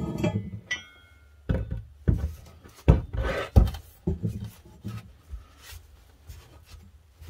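A metal andiron handled on a wooden workbench: a short metallic clink near the start, then a string of knocks and thunks as it is turned and moved, with a cloth rubbing over it in between.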